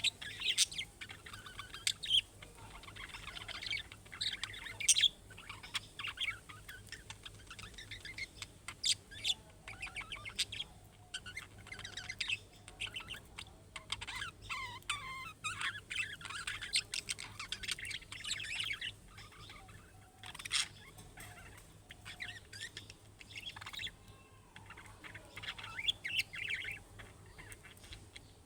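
Budgerigars chattering: a continuous warble of quick chirps and trills, broken by frequent sharp, louder calls.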